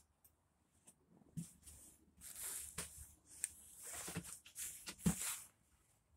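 Scuffing, rustling movement and handling noises with several sharp clicks, and a soft bump about five seconds in.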